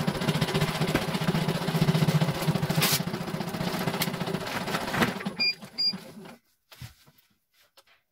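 CNY E900 embroidery machine stitching steadily with a low hum, then stopping about five seconds in. Two short electronic beeps follow, and the rest is nearly quiet.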